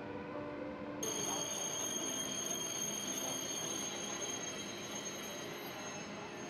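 Soft music, then an abrupt cut about a second in to railway platform ambience. An ICE high-speed train standing at the platform gives off a steady high-pitched whine over a general station hiss. The whine slowly fades.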